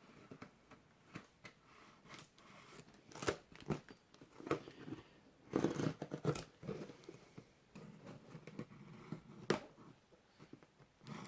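A cardboard box being cut open with a knife: irregular scrapes and slicing through packing tape, with clicks, knocks and rustling and a busier stretch of cutting about halfway through.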